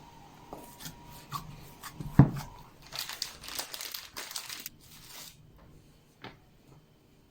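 Packaging or a plastic bag being handled and crinkled, with a sharp knock about two seconds in and a dense rustle for a couple of seconds after, ending with a single click.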